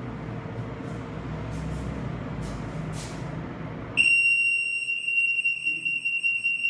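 An RF anti-theft gate's alarm buzzer starts about four seconds in with a steady high-pitched tone: the antenna has detected an RF square security tag. Before that, only faint handling rustle and a few light clicks.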